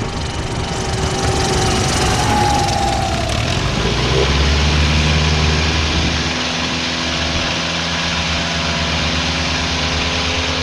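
Pitts S-1S biplane's engine and propeller running at low power as the plane rolls out on the runway after landing. It settles into a steadier, lower hum about four seconds in.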